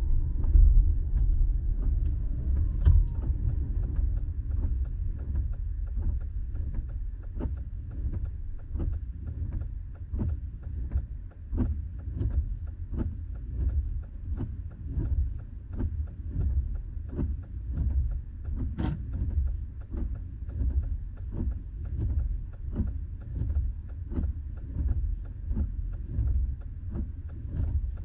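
Inside a car cabin, the low road and engine rumble eases as the car slows to a stop. Over it runs a steady ticking, about one and a half ticks a second, like a turn-signal indicator clicking.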